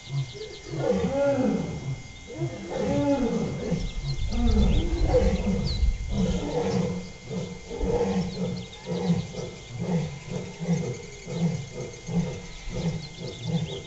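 Lions roaring: a few long moaning roars, then a run of shorter grunting roars about one a second.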